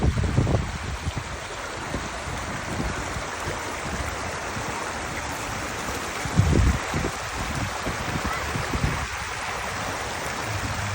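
Waterfall pouring steadily, a continuous rush of falling water, with short low rumbles at the start and about six and a half seconds in.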